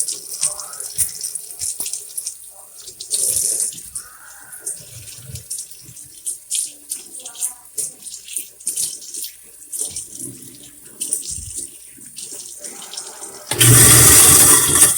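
Kitchen sink being rinsed: a faucet runs in spurts, with scattered knocks and clinks at the sink. A loud rush of water lasts about a second near the end.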